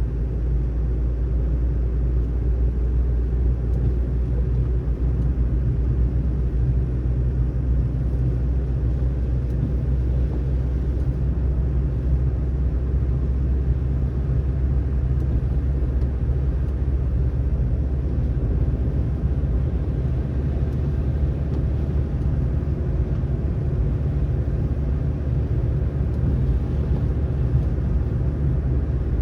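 Steady low road rumble of a car being driven, tyre and engine noise without change.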